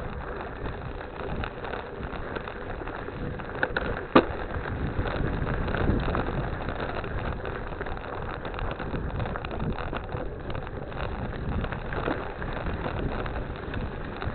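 Ride noise from a bicycle: tyres rolling over wet ground, with small rattles and knocks from the bike and one sharp knock about four seconds in.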